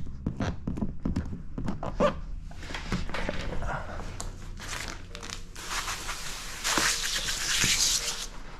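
Clear paint protection film being worked on a car bumper: crinkling, scraping and tapping as it is squeegeed and lifted. About six seconds in, a steady hiss lasting a couple of seconds.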